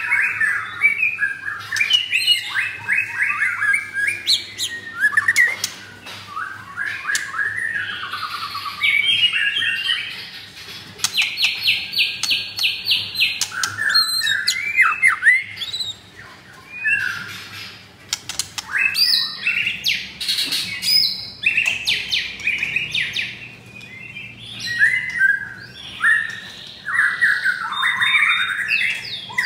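White-rumped shama singing a long, varied song of whistled phrases, rapid trills and sharp clicks.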